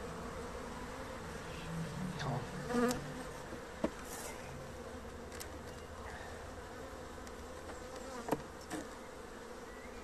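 Honeybee colony humming steadily around an opened hive, many bees in flight. Two short knocks stand out, about four seconds in and again about eight seconds in.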